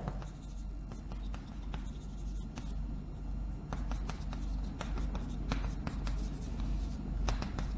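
Chalk writing on a blackboard: a run of short taps and scratches as characters are written, over a low steady hum.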